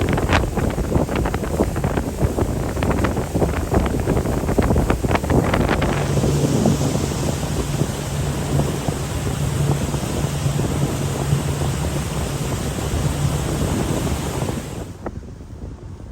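Wind buffeting the microphone and sea water splashing around a moving boat. From about six seconds in, the boat's engine hums steadily under the rushing noise. The whole sound falls away sharply just before the end.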